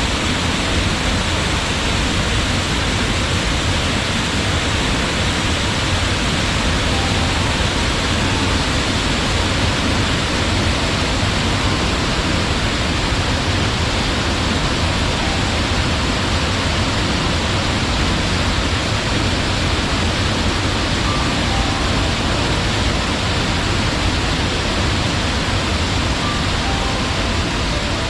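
Waterfall: the steady, unbroken rush of falling water, loud and even throughout.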